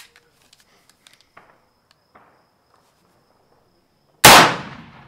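A single loud .30-30 rifle shot about four seconds in, sharp at the start and then dying away in an echoing tail over most of a second. The round is a handload primed with a magnum pistol primer instead of a large rifle primer.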